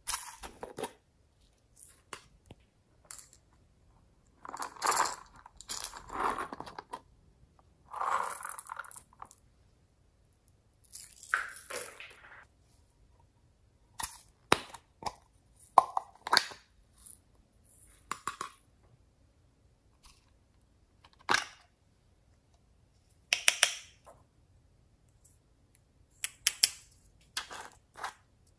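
Small plastic toy containers being handled and opened close to the microphone: scattered sharp plastic clicks and taps, with a few short scraping rustles lasting about a second each.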